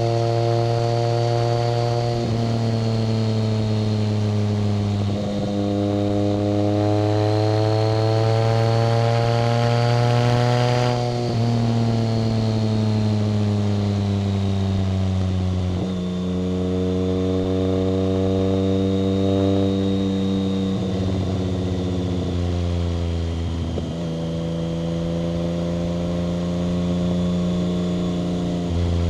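1990 BMW K75's inline three-cylinder engine under way, its note climbing with the revs and dropping back at gear changes several times; the longest climb ends with a clear drop a little over a third of the way in. A thin high whine runs above the engine note throughout.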